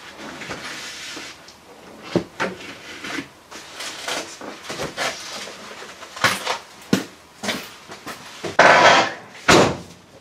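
Irregular knocks, taps and scrapes from hand work at the rusty lower corner of a camper van's windscreen frame, with a louder rough scrape near the end.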